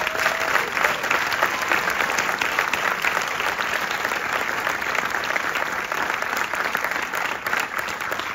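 Audience applauding, a dense steady clapping that swells up just after a spoken line and holds.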